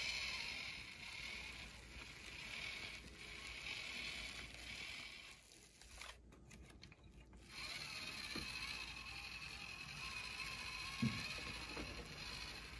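Small geared electric motor of a toy tractor whirring as it drives along, pulling a loaded trailer. The whirr stops for a second or two about six seconds in, then starts again, with a short knock about eleven seconds in.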